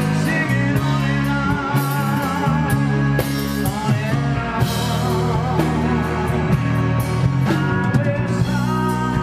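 Live rock band playing loud: distorted electric guitars, bass and a drum kit with steady cymbal hits, with a man singing over them.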